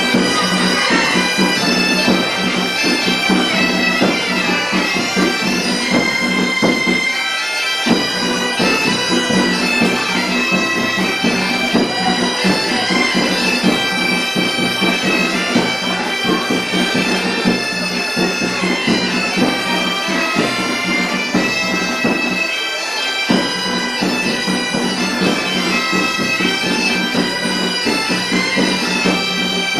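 Bagpipes playing a melody over a steady low drone. The drone drops out briefly twice, about seven and twenty-three seconds in, while the melody carries on.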